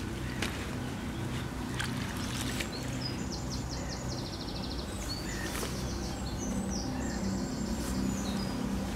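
A small songbird singing several bursts of rapid, high trills from about three seconds in, over a steady low outdoor rumble, with a few faint clicks.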